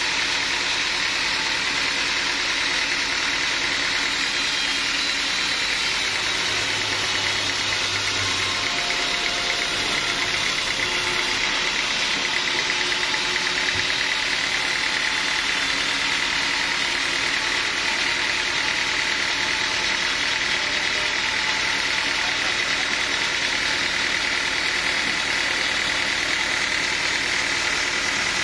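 Sawmill machinery running steadily: a continuous, even mechanical noise with a faint hum, no breaks or impacts.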